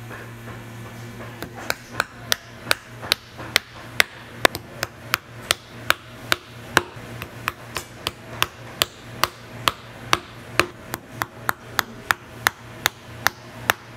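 A hammer striking steadily in boot repair work, a little over two blows a second, starting about a second and a half in and speeding up slightly near the end, over a steady low hum.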